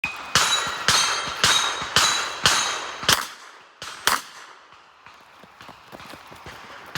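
Rapid revolver fire: six sharp shots about half a second apart, each followed by a brief ringing tone, then another report about four seconds in and faint clicks after it. A short beep, typical of a shot timer's start signal, sounds at the very start.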